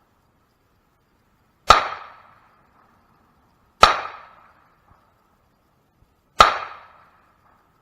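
Three single pistol shots, slow aimed fire a little over two seconds apart, each with a sharp crack and a short ringing decay.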